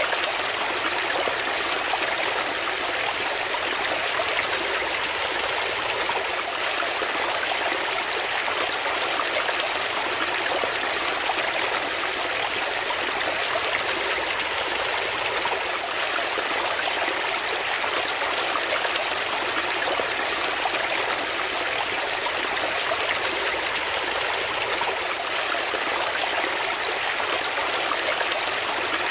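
Shallow brook water running and splashing over rocks in small cascades: a steady, bright rush that never pauses, with little low rumble.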